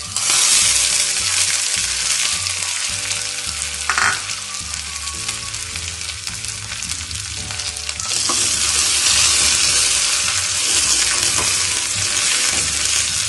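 Dried red chillies and curry leaves tipped into hot coconut oil with frying shallots, sizzling loudly in an aluminium kadai: this is the tempering for a buttermilk curry. The sizzle flares suddenly as they hit the oil and grows louder again about eight seconds in as the pan is stirred, with one sharp click midway.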